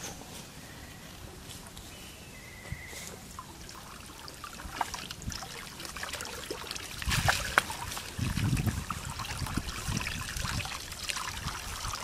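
Water splashing and dripping as a cast net is hauled by hand out of a shallow pond, with fish thrashing in the mesh. Quiet at first, it grows busier about halfway through, with a run of sharp splashes and water streaming off the net.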